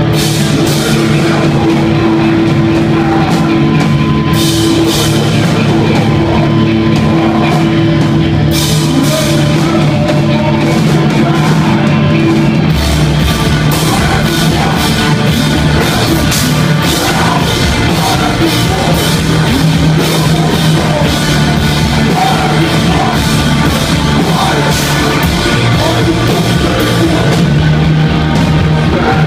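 Live rock band playing loud distorted electric guitars, bass and drums. The cymbals come in a few seconds in, and the low end gets heavier about halfway through.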